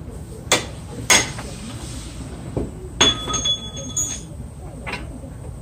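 Metal clinks of a wrench and the brake caliper being handled: about five sharp clinks. The one about three seconds in rings on for about a second.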